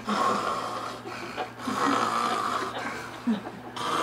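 Snoring: about four loud, rasping breaths in and out with short gaps between them.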